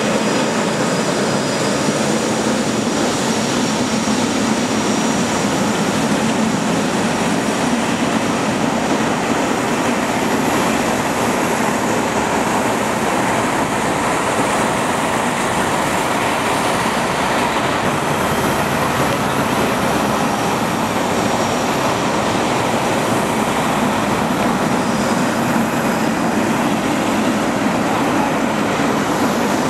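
Boeing 777 twin GE90 turbofans running at taxi power: a steady jet noise with a faint high whine over it.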